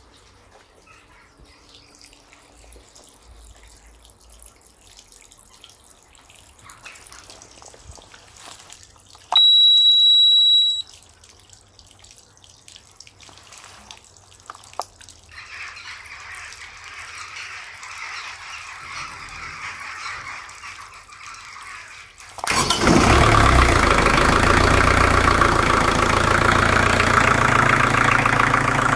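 Thornycroft TK-50 marine diesel start-up: a high steady beep from the control panel's warning buzzer sounds for about a second and a half, then about 22 seconds in the engine fires and runs steadily and loudly.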